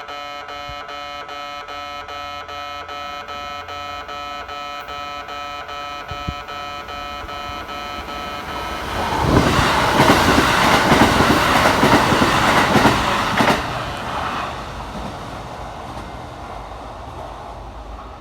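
Electronic warning bell of a Japanese railway level crossing ringing in an even, repeating pattern. About nine seconds in, a Kintetsu train passes and its loud running noise drowns out the bell for about five seconds, then fades away.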